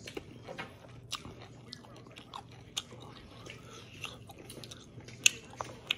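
Close-up eating sounds: a person chewing and biting food, with scattered sharp clicks, the loudest about five seconds in.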